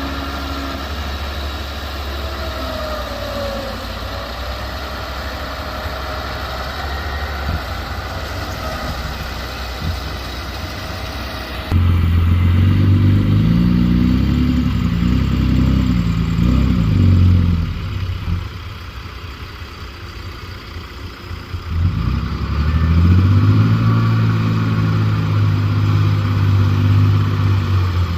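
Diesel engine of a small bulldozer running: steady at first, then after an abrupt change about 12 s in, a louder, deeper engine that eases off for a few seconds and picks up again about 22 s in.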